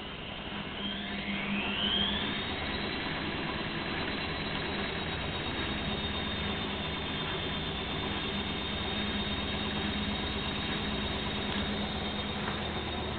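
Gorenje washing machine on an extra-spin program set to 1100 rpm: the motor's whine rises in pitch over about two seconds as the drum speeds up, then holds steady at high spin speed over a low hum.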